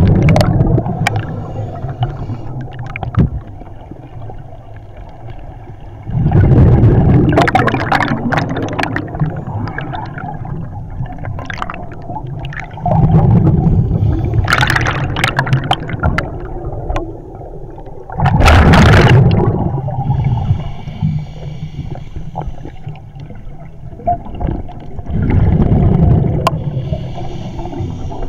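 Scuba diver's exhaled bubbles rumbling and gurgling past the head underwater, in a burst about every six seconds, with a faint regulator hiss between breaths. The regular exhalations point to the diver breathing from an open-circuit bailout regulator instead of the closed loop, as he did when the rebreather became hard to breathe from.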